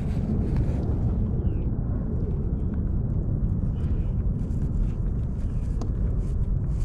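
Wind buffeting the microphone as a steady low rumble, with faint rustling and small clicks as a striped bass wrapped in a cloth is handled.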